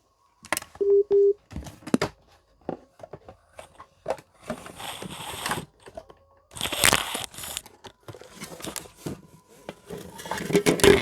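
Handling noise as a small Zebronics speaker and its cable are set up: scattered clicks and knocks with rustling in the middle, and two short electronic beeps about a second in.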